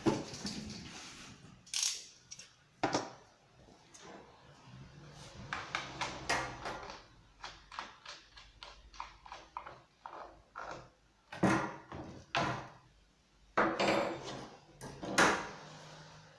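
Handling noises from a battery chainsaw being unboxed: an irregular run of knocks, clicks and rustles, with a few louder knocks in the second half.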